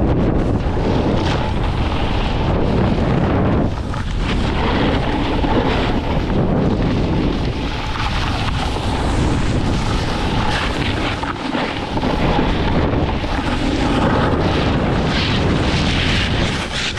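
Wind buffeting a moving camera's microphone during a snowboard run, mixed with the steady hiss and scrape of the board sliding over snow.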